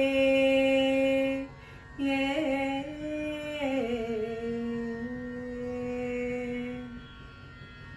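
A woman singing the drawn-out closing notes of a Tamil devotional hymn to Murugan in Carnatic style. One long held note, a short break, then a phrase that slides down and settles on a long low note that fades away near the end.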